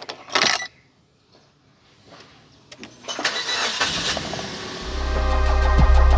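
A car engine being cranked and started, rising in a noisy stretch from a little under three seconds in. A short loud noise comes about half a second in. Electronic music with heavy bass comes in about five seconds in.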